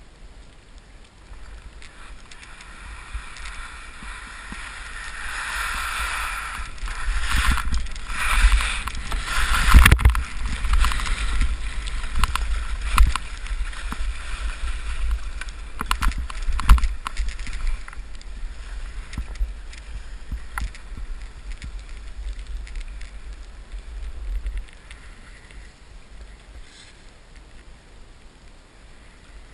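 Skis hissing and scraping through ungroomed snow on a downhill run, with wind rumbling on the microphone. Loudest through the middle with a few sharp knocks, easing off near the end.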